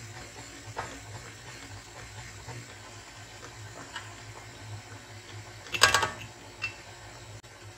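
KitchenAid stand mixer running steadily at low speed, its flat beater turning through flour in the steel bowl, with liquid pouring into the bowl. A brief sharp clatter about six seconds in.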